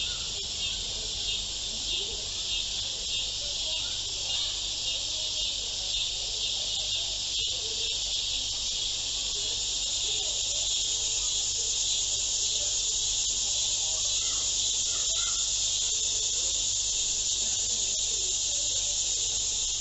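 Steady high-pitched hiss, pulsing slightly at first and then even.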